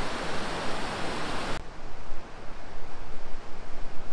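Shallow mountain stream rushing over rocks in a steady wash of water. It cuts off abruptly about a second and a half in, leaving a quieter, uneven low rumble.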